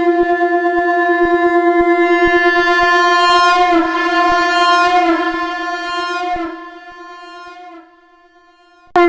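Shankh (conch shell) blown in one long held note on F, swelling brighter and wavering in pitch around the middle, then dying away about six and a half seconds in. After a second or so of quiet, a new blast starts abruptly just before the end.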